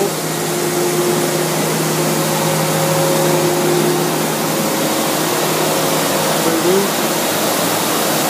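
Loud, steady workshop machinery noise: a constant hum with several steady tones under an even hiss.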